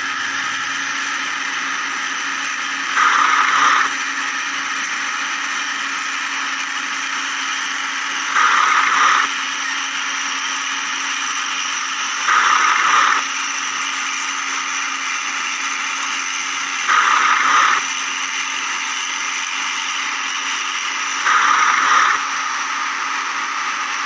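Steady mechanical whine of a toy excavator's motor, with five brief louder surges spaced about four to five seconds apart.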